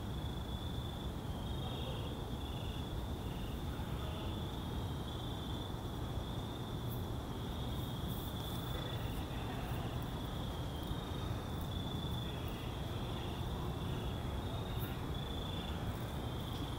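Crickets chirping: a steady high pulsing trill with a second, lower chirp coming and going, over a constant low rumbling background noise.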